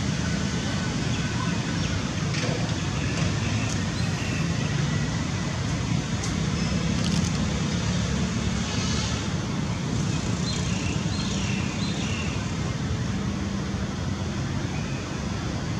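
Steady low rumble of background traffic-like noise, with a few faint, brief high sounds in the middle.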